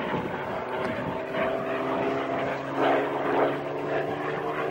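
Bell P-63 Kingcobra's Allison V-12 engine and propeller droning steadily as the fighter flies past, with a brief swell about three seconds in.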